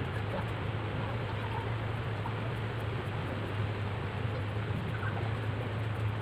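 A steady low hum under an even background hiss, unchanging throughout, with a few faint, brief high sounds about five seconds in.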